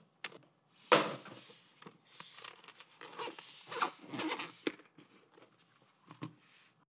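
Zipper of a small semi-hard zippered carrying case being pulled open in several short noisy strokes, the loudest about a second in, with a few clicks and knocks of the case being handled.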